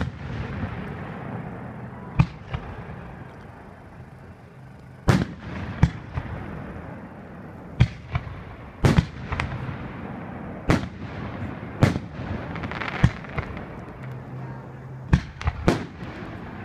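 Aerial fireworks shells bursting overhead: a dozen or more sharp booms at irregular intervals, some in quick pairs and triplets, with hissing from the rising shells between them.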